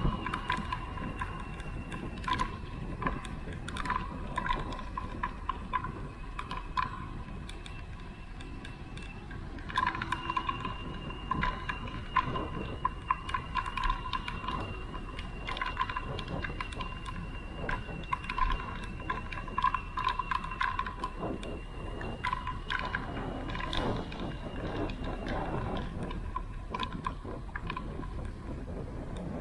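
Bicycle rattling and ticking over the road during a ride, with a steady high tone running underneath.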